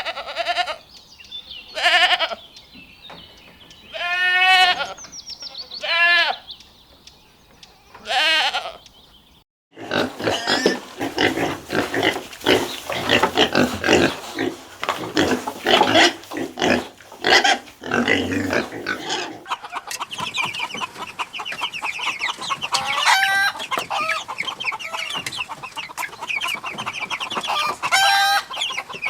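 Goats bleating, four or five separate wavering calls in the first nine seconds. After a brief break comes a busy farmyard of many short overlapping calls: chickens clucking, with high thin peeping toward the end.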